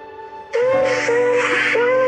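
Background music: after a brief lull, a melody with sliding, wavering notes over held low notes comes in about half a second in.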